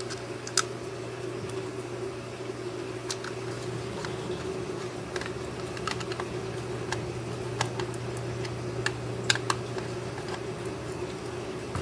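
Scattered light clicks and taps of a screwdriver and hard plastic as a screw is driven through a plastic skull shell into a servo mounting plate, over a steady low hum.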